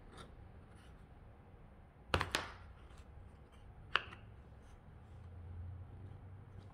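Small pine pieces knocking together as they are handled and fitted into place on a cutting mat: a quick double knock about two seconds in and a single sharp click at about four seconds.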